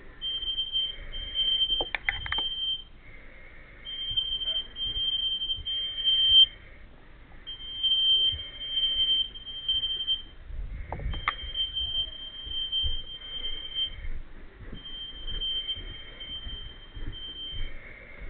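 Smoke alarm sounding a high-pitched beep over and over in groups, with short pauses between groups, set off by smoke from food burnt on the stove. Sharp knocks come about two seconds in and again near the middle.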